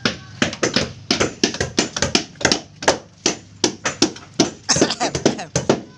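Irregular hammer blows on the wooden hull of a fishing boat under repair, about three or four sharp strikes a second from more than one hammer working at once.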